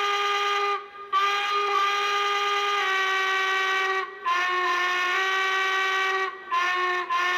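Recorded steam-locomotive whistle played through a Lionel sound passenger car's speaker. It sounds a series of steady blasts with short breaks between them: two long blasts, then a brief toot, then another blast starting near the end. It is a rich, old-time steam whistle.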